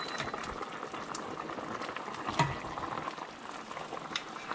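Native chicken pieces simmering in a stainless steel pot of water, bubbling steadily after more than an hour of boiling to tenderise them. A plastic spoon stirs and lifts the pieces, with a few sharp knocks, the loudest about two and a half seconds in.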